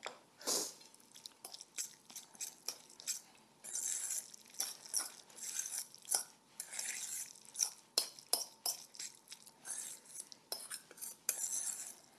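Fork stirring tuna salad in a stainless steel mixing bowl, mixing mayonnaise in: repeated clinks and scrapes of metal on the bowl.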